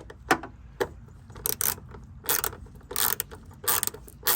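Ratchet wrench with a 10 mm socket clicking in short bursts, one or two a second, as the screws of an old Miata door bushing are backed out.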